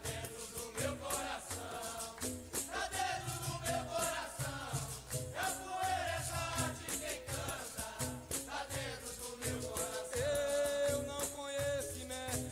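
Capoeira song playing: berimbau with its caxixi rattle and percussion keep a steady rhythm under a sung melody.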